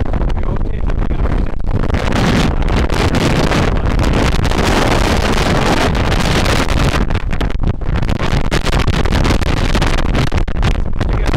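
Storm-force wind gusting hard across the microphone: a loud, continuous rumbling rush that swells and eases, strongest in the middle.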